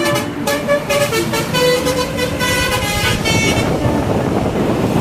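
Telolet multi-tone horn of an odong-odong tourist road train playing a quick run of stepped notes, which stops a little past halfway, leaving a steady noise.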